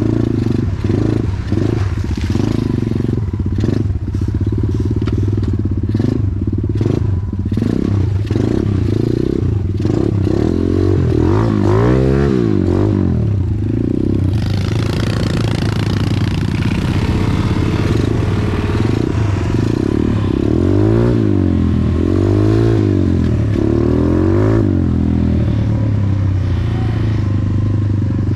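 Off-road motorcycle engine running continuously and revving up and down repeatedly as it rides, with a spell of wind noise a little past halfway.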